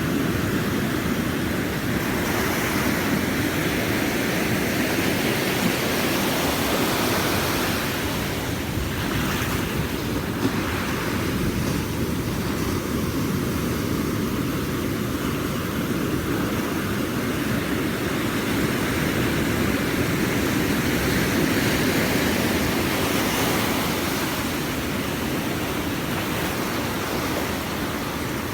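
Ocean waves washing onto a beach: a steady rush of surf.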